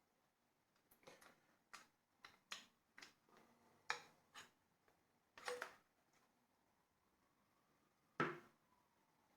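Faint, scattered clicks and knocks from the 3D-printed crossbow being handled, about ten in the first six seconds and one sharper knock near the end.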